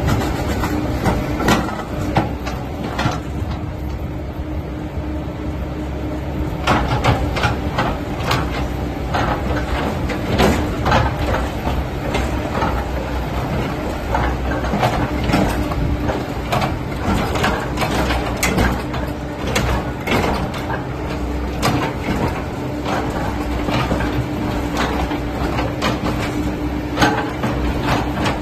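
Caterpillar 307E2 mini excavator at work: its diesel engine runs steadily with a constant low hum. Frequent short knocks and clanks from the working machine come through on top of it.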